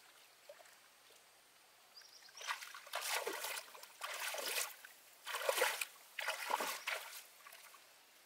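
Water splashing and sloshing in five or so short bursts, starting about two and a half seconds in.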